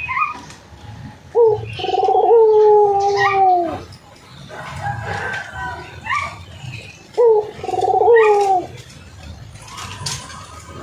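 A rooster crowing twice, each a long drawn-out call with a choppy start that trails off at the end, about six seconds apart. Short high bird chirps come in between.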